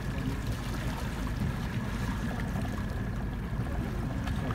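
Harbour ambience by calm sea water: a steady low rumble with a faint, thin, steady high whine over small water sounds.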